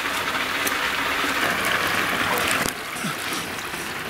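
Water splashing and running off a large sturgeon as it is lifted out of the shallows: a steady watery hiss that drops away suddenly just under three seconds in.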